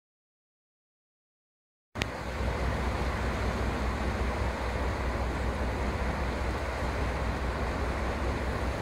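About two seconds of dead silence, then a click and a steady low rumble with hiss that runs on unchanged.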